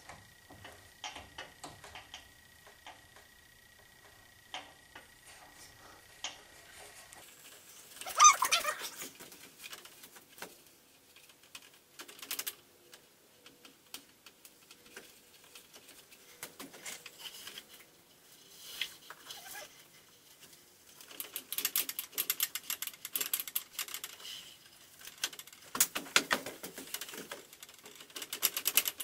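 Hand work on a tubular metal frame: scattered metallic clicks and knocks, a louder rattling clatter about eight seconds in, and runs of rapid clicking near the end.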